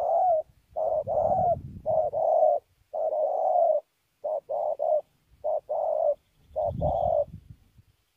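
Spotted dove cooing: about seven phrases in a row, most a short note followed by a longer drawn-out coo, with short pauses between them.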